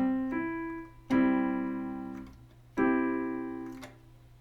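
Piano playing a C major chord in a higher octave. Notes come in one after another at the start, then the full chord is struck twice, about a second in and again near three seconds, each time ringing and fading away.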